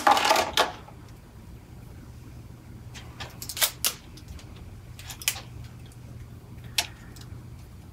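Arrow rest being taken out of its plastic packaging: a few short crackles and clicks, a cluster a few seconds in and two more later. Under them runs a steady low hum.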